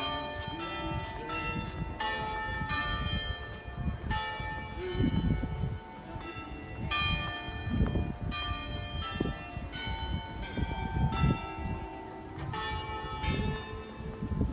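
Tuned church bells in the basilica tower at the Sanctuary of Fátima ringing a slow tune, one bell struck after another, each note ringing on as the next sounds. Wind gusts on the microphone underneath.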